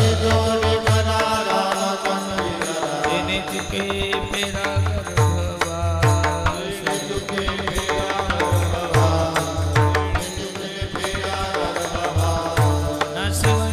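Devotional kirtan music without words: a hand drum keeps a steady rhythm of deep bass strokes that bend in pitch, over held melodic tones and frequent sharp, bright strokes.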